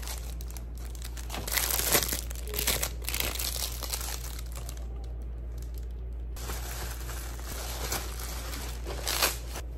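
Clear plastic packaging crinkling and rustling as it is handled and pulled open, in bursts that are loudest about two seconds in and again briefly near the end.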